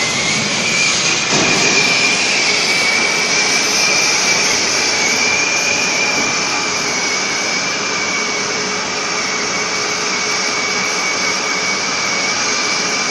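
Oxy-fuel cutting torch on a CNC gantry cutter burning with a steady gas-jet hiss that carries a high whistling tone. The hiss fills out a little about a second in.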